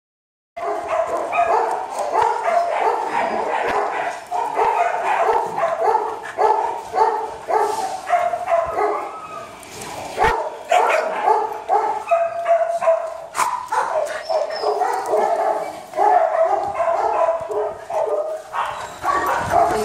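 Dogs barking over and over, several barks a second, with a brief lull about ten seconds in.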